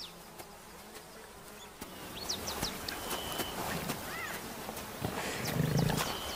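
Young lions growling low as they feed on a hippo carcass, the loudest growl about five and a half seconds in, with insects buzzing around the carcass.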